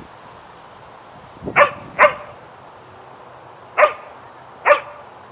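A dog barking: four short, sharp barks, a quick pair about a second and a half in, then two more about a second apart near the end.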